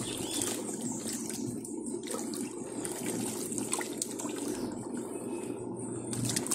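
Dako 4 kg tanquinho washing tub running, its fast-spinning impeller (turbilhonador) churning and sloshing soapy water and clothes in a steady wash.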